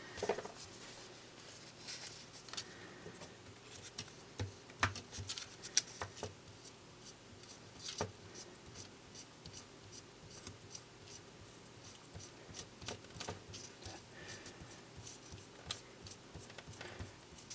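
Faint, irregular small clicks and light rubbing: a piece of paper wetted with isopropyl alcohol being wiped over the video head drum of a Panasonic Super VHS-C camcorder to clean the heads. A few sharper clicks stand out about five to eight seconds in.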